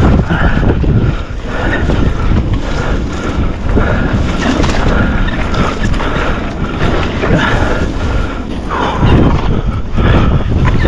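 Wind buffeting the microphone over the steady rumble of a mountain bike being ridden on a dirt trail.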